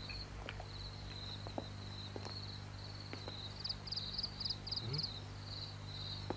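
Crickets chirping in rapid pulsed groups over a steady low hum, with a few faint clicks.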